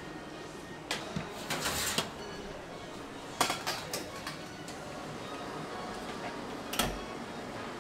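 Metal baking trays clanking and scraping as they are pulled from an oven and slid onto the rails of a steel bakery rack trolley: sharp clanks about a second in, a cluster near two seconds, a couple more around three and a half to four seconds, and a heavier knock near the end.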